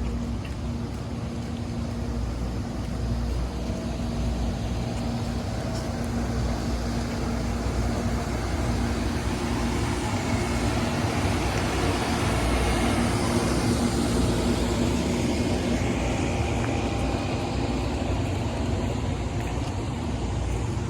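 Amtrak diesel locomotive idling while standing at the platform: a steady low rumble with a constant hum. A broader noise swells in the middle and eases off again.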